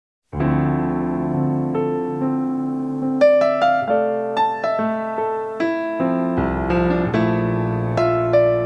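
Korg Krome workstation's grand piano sound, the unlooped piano sample taken from the Korg Kronos, being played: a held chord starts about a third of a second in, a melody of single notes enters over it, and a deep bass chord comes in about halfway through.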